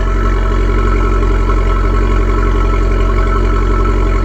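Abarth 595's turbocharged 1.4 T-Jet four-cylinder idling steadily through its stock exhaust, with no revving.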